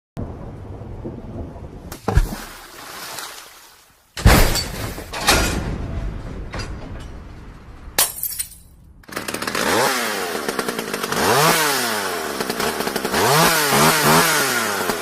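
Sound-effects track: a noisy hiss broken by several sharp crashes, then a motor whose pitch rises and falls again and again, like an engine being revved up and down.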